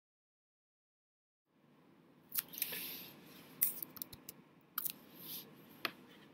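Silence for about a second and a half, then faint room tone with four sharp clicks about a second apart and soft rustling: small handling noises made close to the microphone.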